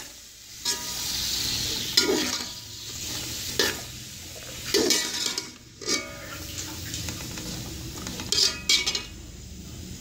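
Chopped vegetables sizzling in hot oil in a steel pot while a metal spoon stirs them, scraping and knocking against the pot several times.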